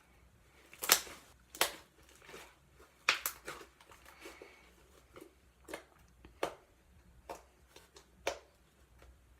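Butter slime (clay worked into slime) being kneaded and folded by hand: irregular sharp pops and squelchy clicks, the loudest about a second in and again about three seconds in.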